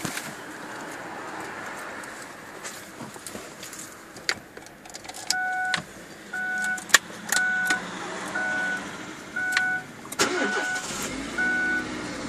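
Kia Rio petrol engine started with the key about five seconds in and settling into a fast idle, with the car's warning chime beeping over and over. The engine starting and running means the newly fitted ignition leads work.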